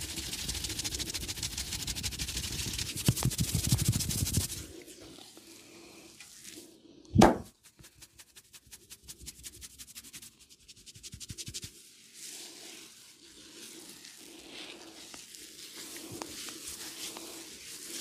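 Oil head massage: hands rubbing and scratching through oiled hair with a dense crackling sound for the first few seconds, then one loud smack about seven seconds in, followed by quick, light, even tapping and softer rubbing.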